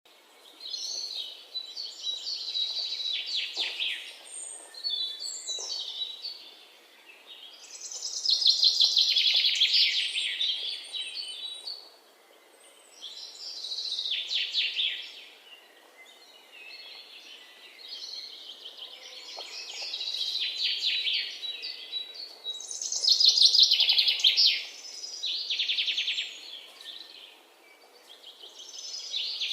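Budgerigars chirping and warbling in fast, high chatter that swells and fades in waves every few seconds, loudest twice: about ten seconds in and again a little past twenty seconds. This is the contented chatter of budgies in a happy mood.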